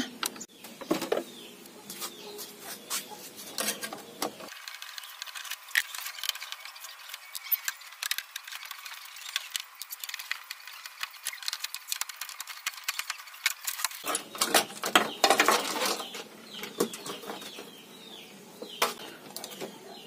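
Irregular clicks, taps and rattles of a screwdriver and the plastic control-panel parts of a Sharp twin-tub washing machine as the panel's screws are taken out and the panel is lifted off.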